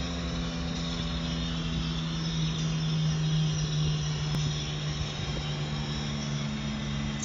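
Car's engine and road noise heard from inside the cabin while driving: a steady hum under an even rush.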